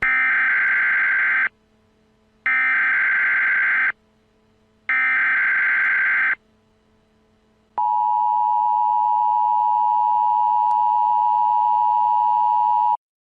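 Emergency Alert System tones: three short bursts of SAME header data, each about a second and a half long with a second's gap between them, then the two-tone attention signal held steady for about five seconds before it cuts off. Together they signal the start of a new emergency alert.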